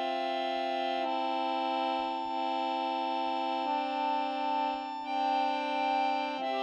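Background music: slow sustained chords with no beat, moving to a new chord about a second in, again near the middle, and just before the end.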